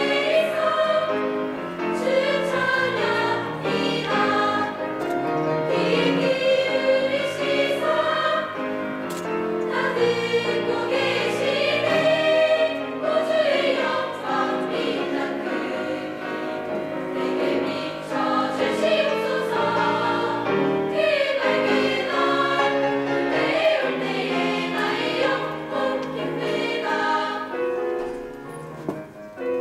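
Girls' high school choir singing a hymn in several-part harmony, the voices easing off briefly near the end.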